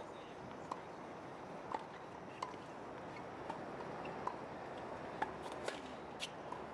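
Tennis ball bouncing on a hard court several times, about a second apart, then a louder crack of the racket striking the ball on a serve about five seconds in, over a faint steady background hiss.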